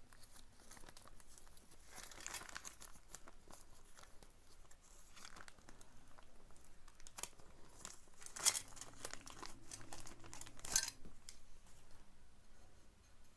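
Packaging crinkling and rustling as a soldering-kit part is unwrapped and taken out of its bag, with two sharp clicks in the second half.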